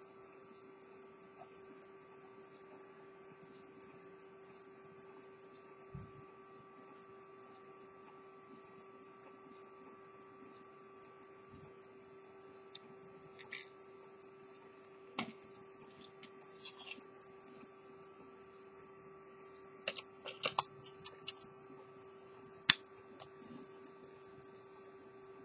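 Faint, steady ticking of an open Edmond Mathey-Tissot minute repeater pocket watch, over a low electrical hum. Several small clicks from the watch being handled come in the second half, the sharpest near the end.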